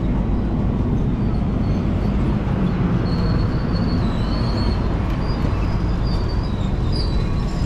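Diesel-hauled passenger train of stainless-steel cars giving a steady low rumble, with faint high wheel squeals from about three seconds in.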